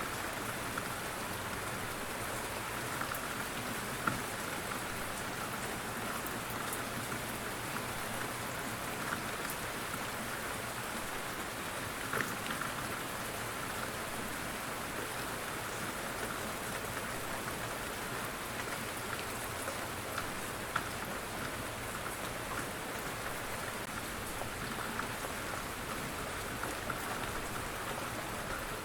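Steady rain falling on surfaces, an even patter with scattered louder individual drop hits.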